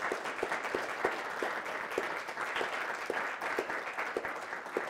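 Audience applauding: many hands clapping in a dense, even patter.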